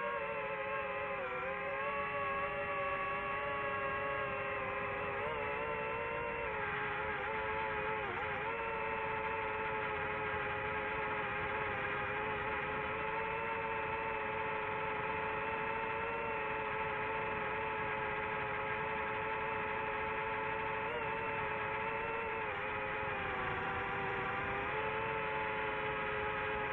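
DJI FPV drone's motors and propellers whirring at a steady pitch, with small dips in pitch as the throttle changes.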